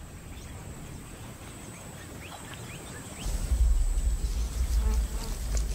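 Outdoor bush ambience with a few short, faint rising bird chirps, then a deep low rumble that starts about three seconds in and carries on.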